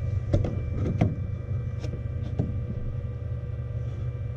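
Steady low hum with faint high whines from a powered-on Flashforge Dreamer NX 3D printer and its fans. Several light clicks and knocks in the first two or three seconds come from handling.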